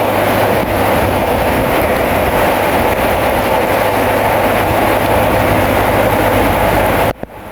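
Bulldozer's diesel engine running steadily under load with a constant low hum, dropping suddenly to a quieter level about seven seconds in.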